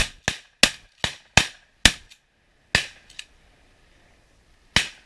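A rapid volley of shotgun blasts at ducks coming in: about eight sharp shots in quick succession over the first three seconds, some only a third of a second apart, then one last shot near the end.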